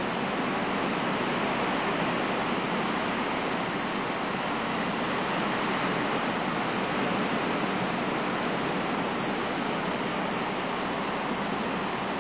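Fish tank's water circulation running: a steady, even rush of moving water.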